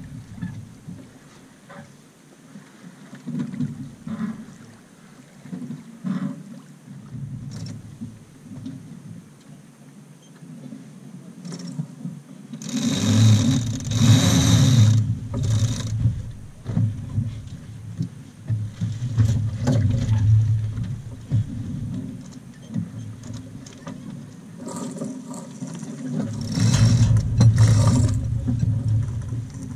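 Wind buffeting the microphone aboard a sailing yacht under sail: an uneven low rumble that swells into louder, hissing gusts about halfway through and again near the end.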